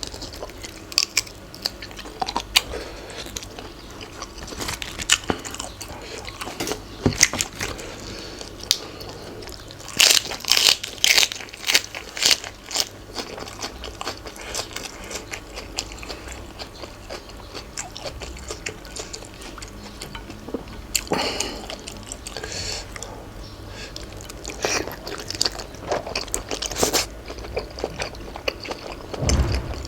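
A person biting and chewing crunchy food close to the microphone, eating a spicy Thai pounded salad of cuttlefish and shrimp. Irregular crisp crunches run throughout, loudest in a run of bites about ten seconds in and again later.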